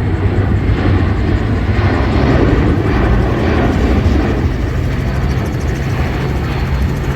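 Aircraft engine noise, a loud continuous rumble that swells about two to four seconds in and then eases slightly.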